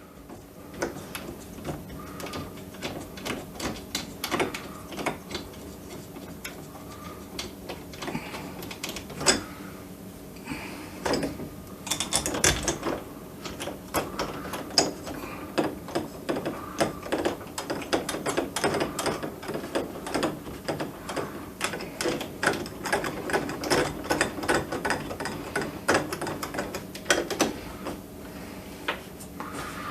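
Irregular metallic clicking and small knocks of screws being started and driven by hand with a Phillips screwdriver into a doorknob's mounting plate, with the knob parts rattling as they are handled.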